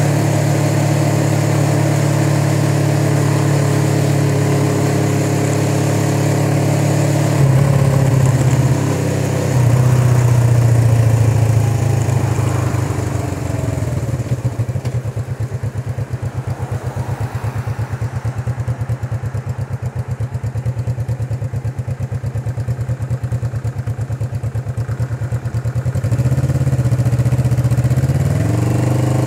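1981 Suzuki GS450's air-cooled parallel-twin engine running on the move, picked up by a phone microphone. The revs shift after about eight seconds, fall into a lower, pulsing beat for roughly twelve seconds, then climb again near the end.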